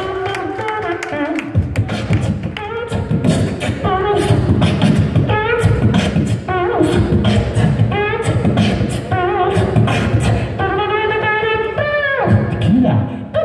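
Solo beatboxing into a handheld microphone over a PA: a rapid vocal beat of kick, snare and hi-hat sounds with pitched vocal lines bending up and down over it.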